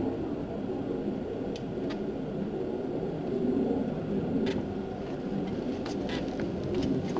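Steady low rumble of a running engine, with a few faint clicks about one and a half, two, four and a half and six seconds in.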